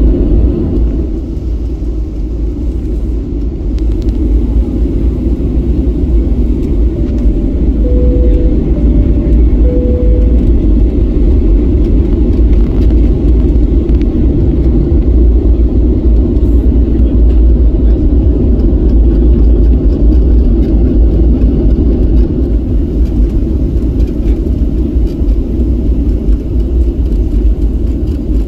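Steady low rumble of a Boeing 737-700 taxiing, heard inside the cabin: its CFM56-7B engines at taxi power and the roll of the airframe. About seven seconds in, a falling two-note chime sounds twice.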